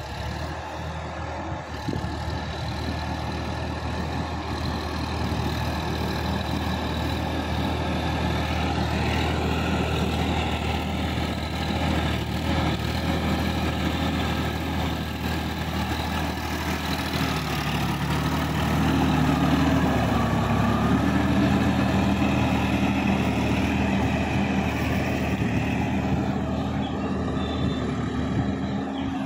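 Sonalika DI-50 RX Supreme tractor's diesel engine running steadily as it drives through a flooded paddy field, pulling a rotary tiller through the water. It grows louder as it comes close, and its note shifts about two-thirds of the way through.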